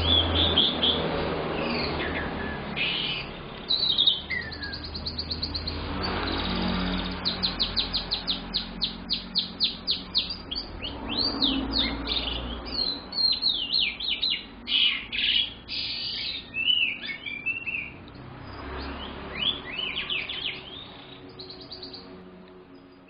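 Young domestic canary singing a long, varied song of whistled phrases and fast rolling trills. The song fades out near the end.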